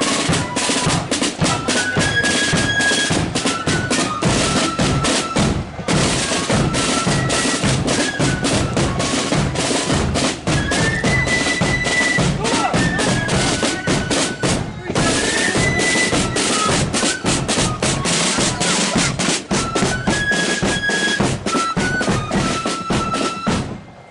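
Marching flute band playing a tune: a high flute melody over rapid snare drumming and bass drum beats. It breaks off twice for a moment and stops at the very end.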